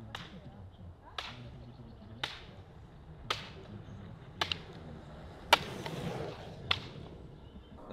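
A series of sharp cracks, one about every second, evenly paced, over a faint background.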